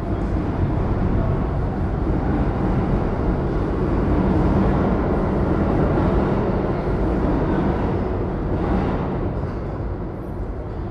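New York City subway train rumbling along the station platform, a steady low roar that is loudest mid-way and eases off near the end.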